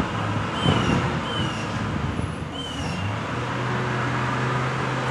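Steady low hum of vehicle traffic, with a bird repeating short falling chirps about once a second and a single knock under a second in.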